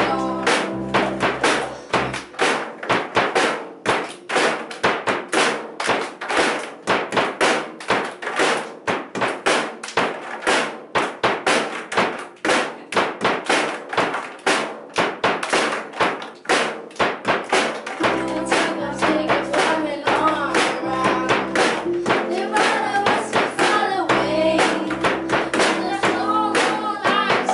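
Children's cup-rhythm routine: fast, even claps and plastic cups tapped and knocked on a tabletop. About 18 seconds in, a keyboard and voices join the rhythm.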